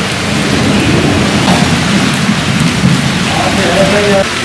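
Steady heavy rain with a low rumble of thunder running under it.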